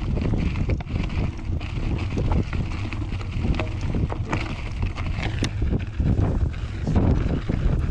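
Wind buffeting the microphone of a bike-mounted camera as a drop-bar mountain bike rides over gravel: a heavy low rumble shot through with many small clicks and rattles from the tyres and bike.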